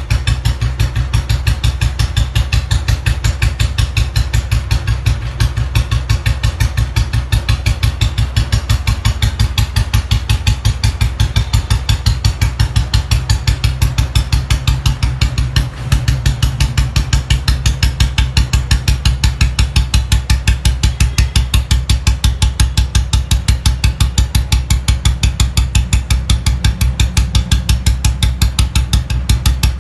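Royal Enfield Bullet G2's single-cylinder engine idling through a short-bottle (Mini Punjab) silencer, giving a steady, even 'dug-dug' thump of about four to five beats a second. The beat dips briefly once, just past halfway.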